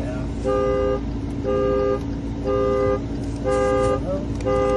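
A 2016 Dodge Dart's two-note horn honking about once a second, roughly five half-second honks in an even rhythm. This is the car's anti-theft alarm, set off by entry without a working key.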